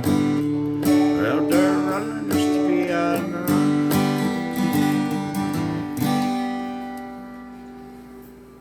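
Acoustic guitar playing the closing bars of the song, strummed chords with picked notes between them, ending on a final chord about six seconds in that rings out and fades away.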